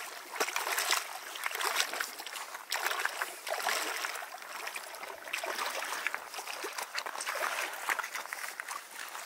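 Shallow river water splashing and sloshing in uneven bursts as someone wades through it and reaches into it, over the running stream.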